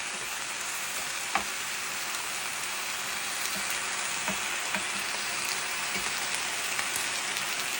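Meat and shrimp frying in a hot pan: a steady sizzling hiss with a few short sharp clicks.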